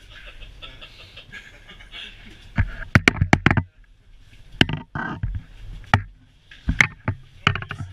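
Scattered sharp clacks and knocks of skis and hard ski boots bumping together in a crowded elevator, over faint chatter.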